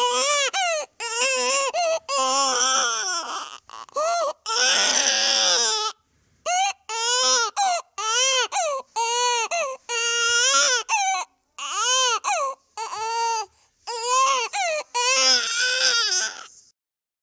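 Infant crying: a string of short, pitched wails, each rising and falling, broken by brief catches of breath, with one harsher, breathier scream about five seconds in. The crying stops shortly before the end.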